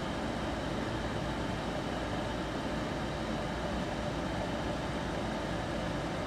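A 2008 Goodman two-stage gas furnace running with its burners lit: a steady rush of the gas flames over the hum of the draft inducer motor, firing without interruption.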